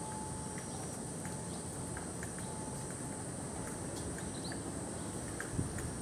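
Typhoon wind and rain outdoors: a steady low wind rumble with scattered light ticks over a constant high-pitched hum, and a low thump about five and a half seconds in.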